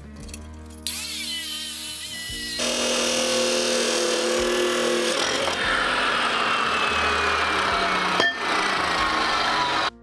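Abrasive chop saw spinning up about a second in, then its blade grinding through square steel tubing, loud and steady, with a sharp click near the end before it cuts off abruptly. Background music is heard briefly at the start.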